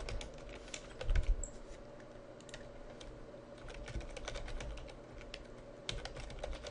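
Typing on a computer keyboard: keys clicking in quick, irregular runs, over a faint steady hum, with a low bump about a second in.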